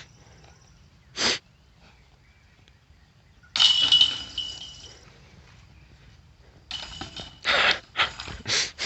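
A putted disc hitting the chains of a disc golf basket about three and a half seconds in: a sudden metallic rattle that rings on and fades over about a second and a half.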